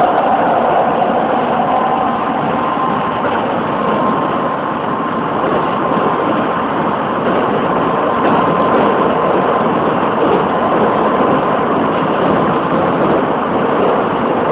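Keisei 3700-series electric train running at speed, heard from inside just behind the driver's cab: a steady rumble of wheels on rail with a faint steady high tone through it. It gets a little louder about eight seconds in as the train runs onto a steel truss bridge.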